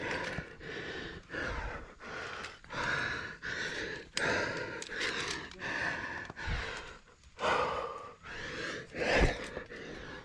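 A rock climber's hard, quick breathing close to the microphone, short gasping breaths about one or two a second: the laboured breathing of effort mid-climb.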